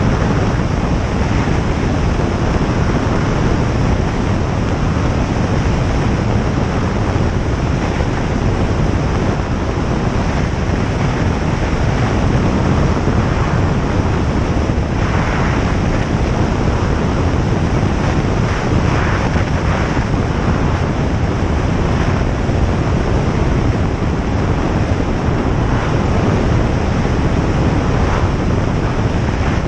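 A single-engine light airplane's engine and propeller running at a steady drone in flight, with no change in power.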